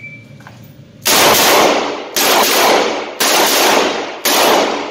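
Four revolver shots fired about a second apart, each ringing out in the echo of an indoor range.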